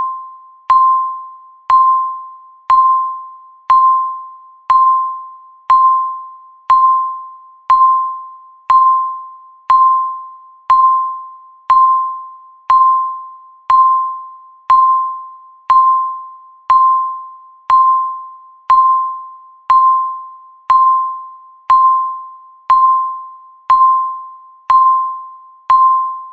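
Countdown timer beeping once a second, about 26 times in a row, each beep a single chime-like tone that strikes sharply and fades away before the next. These are the last seconds ticking down before the end alarm.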